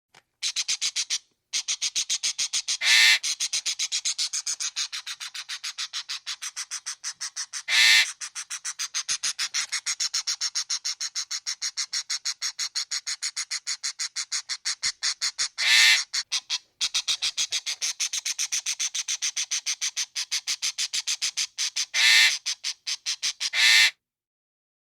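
Parrot squawking in a fast, unbroken run of short harsh calls. It is broken by five louder, longer screeches spaced several seconds apart, the last two close together near the end.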